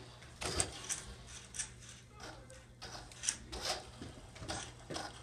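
Remote-control toy car driven in short throttle bursts on a hardwood floor: its small electric motor whirring and its tyres rolling, in about a dozen brief irregular spurts.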